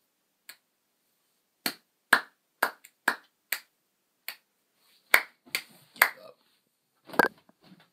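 A run of about a dozen sharp, irregularly spaced clicks, the last a heavier knock near the end.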